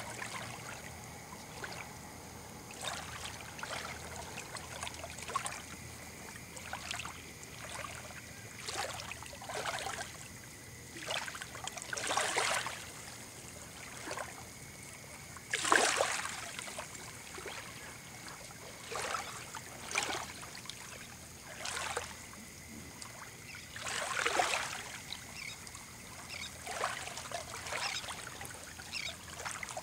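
Small waves lapping and washing over wet sand at the shoreline, coming in irregular swells every second or two, the loudest about halfway through.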